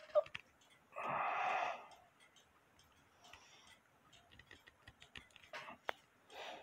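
Light clicks and handling noise from a plastic cuckoo-clock deer head and its antlers being turned and worked in the hands, with one louder rustle lasting under a second about a second in.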